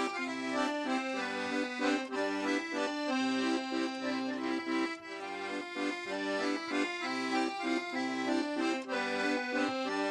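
Paolo Soprani piano accordion playing a traditional folk tune: a melody over held chords, with short bass notes repeating underneath.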